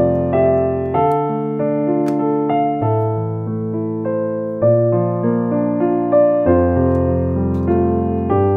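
Background piano music: gentle sustained chords and a slow melody, the notes changing about once a second.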